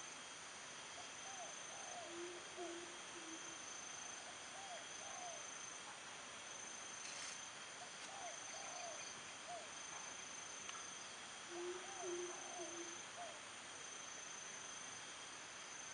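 Chorus of insects and other animals: a steady high trill that breaks off now and then, groups of three or four short chirps every few seconds, and a low hooting call twice, about two seconds in and about twelve seconds in.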